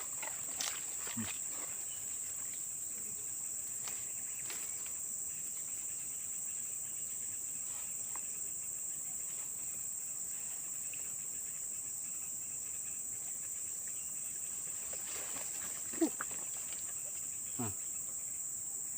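Steady high-pitched drone of insects chirring without a break, with a few faint knocks and handling sounds, two of them near the end.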